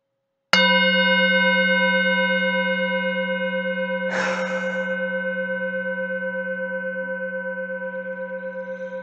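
Metal singing bowl struck once, ringing on with a deep hum and several higher overtones that fade slowly with a steady wobble. A brief rustle about four seconds in.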